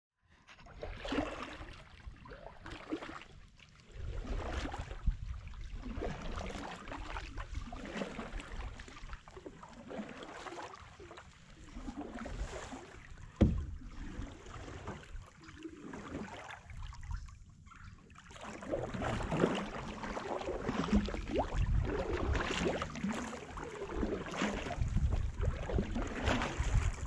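Canoe paddles dipping and pulling through calm creek water, with repeated splashing strokes and dripping. There is a single sharp knock about halfway through, likely a paddle against the canoe's hull.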